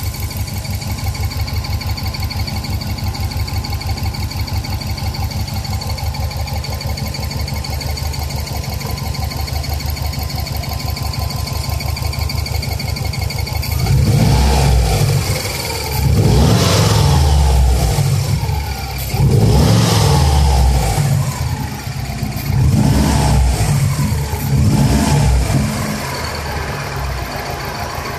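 Turbocharged Subaru WRX flat-four, swapped into a 2.5RS, idling steadily with a thin high whine over it, then revved in about five short throttle blips from halfway through. The owner is chasing an intermittent noise that seems to come from under the top-mount intercooler.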